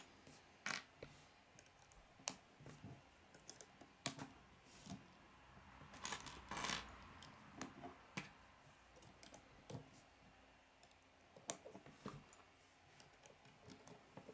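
Faint, irregular clicks and taps of K'nex plastic pieces being handled and snapped together, with a short rustle about six seconds in.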